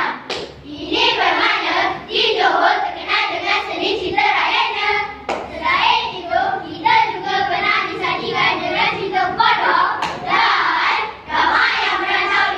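A children's group chanting and singing rhythmically in unison, choral speaking, with a few sharp claps in time with the performance.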